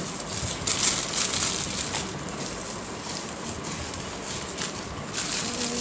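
Plastic snack wrappers crinkling and rustling in irregular bursts as snacks are eaten from them by hand, with chewing.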